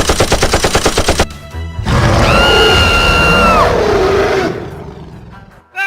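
Rapid machine-gun fire sound effect, about ten shots a second, cutting off about a second in. Then a louder whooshing effect with a held high tone rises in, glides down and fades away.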